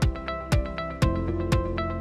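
Instrumental background music with a steady beat, about two beats a second, and sustained pitched notes over it.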